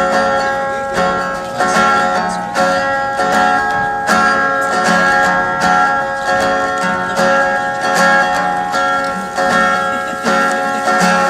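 Acoustic guitar picked in a steady rhythm, an instrumental passage with no singing.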